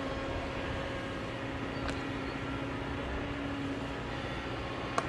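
Kobelco crawler excavator's diesel engine running steadily with a low hum as the bucket digs into the rocky hillside. Two sharp knocks, one about two seconds in and one near the end.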